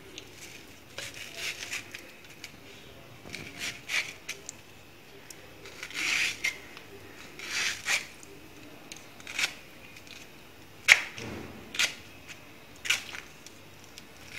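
Kitchen knife slicing a peeled ripe mango into small pieces by hand: short, separate slicing scrapes every second or so, with a few sharp clicks as blade or pieces meet the steel plate below.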